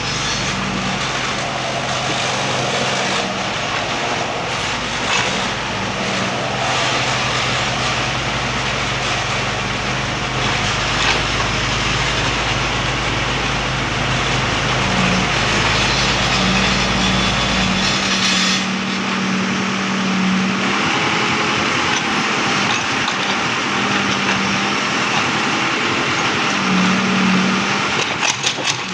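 Backhoe's engine running steadily while working, its note shifting about two-thirds of the way through as the deepest hum drops away. A few sharp knocks near the end.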